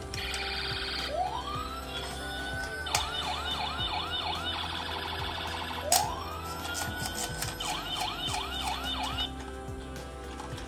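Toy fire truck's electronic siren sound effect: a rising wail that breaks into a fast yelping warble, played twice.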